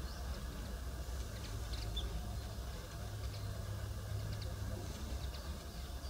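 Outdoor garden ambience: a steady low rumble of wind on the microphone, with faint, short, high chirps of distant small birds scattered through.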